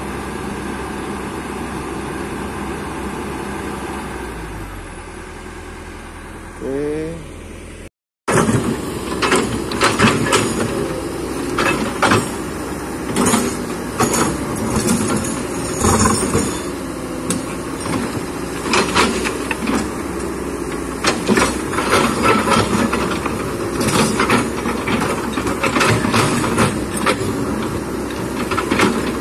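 Kobelco hydraulic excavator running, with a short rising whine about seven seconds in. After a brief break, the engine carries on under a busy run of knocks and clanks from the bucket working rocks and soil.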